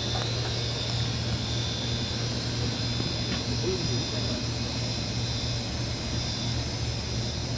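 Steady low mechanical hum of street background noise with a steady high-pitched whine above it, and a faint voice briefly about halfway through.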